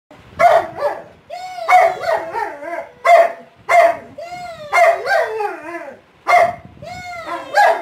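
Large dog barking over and over, about one call a second, each bark drawn out into a wavering, howl-like yowl that bends up and down in pitch.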